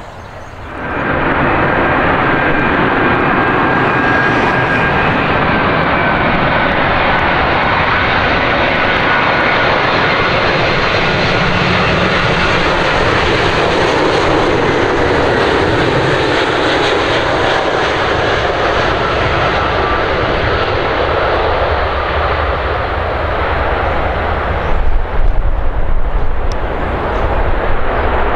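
British Airways Boeing 777 jet engines passing close on final approach: a loud, steady jet roar with a thin whine slowly falling in pitch. Near the end it turns to a deeper, uneven rumble as the airliner touches down and rolls out on the runway.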